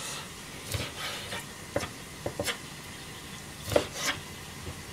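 Kitchen knife slicing squid on a cutting board: irregular light knocks as the blade meets the board, several in all, the loudest near the end.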